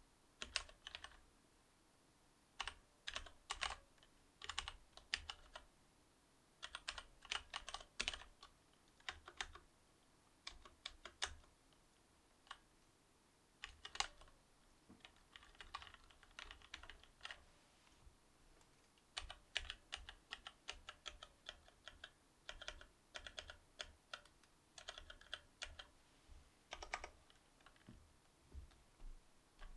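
Typing on a Cherry MX Board 8.0 mechanical keyboard with Cherry MX Silver linear switches: runs of quick keystrokes broken by short pauses.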